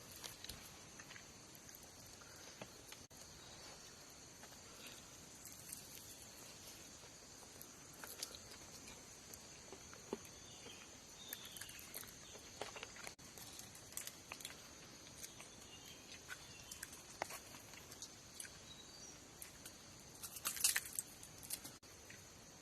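Faint, steady, high-pitched chirring of insects such as crickets, with scattered small clicks and taps throughout and a louder cluster of them near the end.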